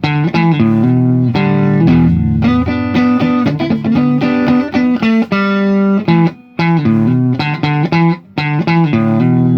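Electric guitar fitted with magnetic humbucker, single-coil and piezo pickups, played plugged in: phrases of picked notes and chords, broken by a couple of brief pauses.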